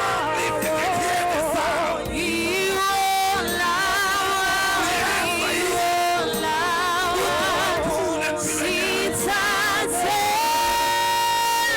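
Gospel music with singing: voices holding long, wavering notes over a steady accompaniment, with one high note held through the last couple of seconds.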